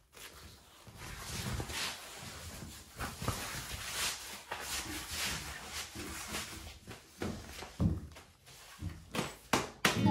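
Rustling and swishing of padded hip-protector shorts being pulled on, with shuffling footsteps and a series of soft knocks and thumps on a wooden floor, sharper and more frequent near the end.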